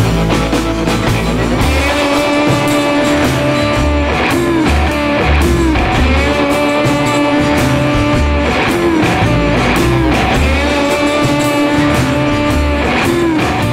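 Background rock music led by guitar, with held, bending notes over a steady pulsing bass.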